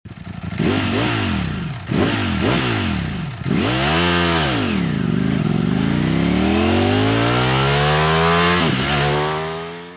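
Motorcycle engine revving: several quick blips of the throttle, then one long rising run of revs, with a brief drop in pitch near the end like a gear change, fading out at the close.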